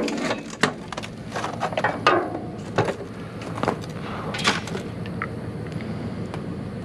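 Scattered knocks and clatter of scrap metal pieces being picked up and tossed, about one knock a second, with one of the strongest about four and a half seconds in, over a steady low hum.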